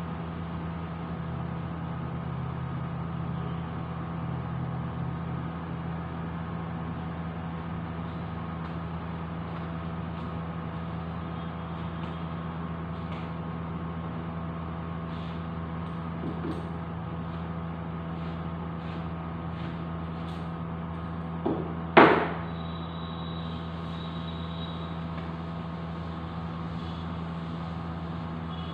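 Steady low mechanical hum, with a few faint ticks and a single sharp knock about three quarters of the way through, the loudest sound, just after a smaller one.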